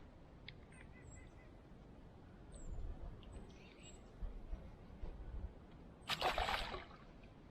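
Small birds chirping faintly outdoors, short high calls over a low rumble in the first four seconds. About six seconds in comes a brief, loud rushing noise that is the loudest sound here.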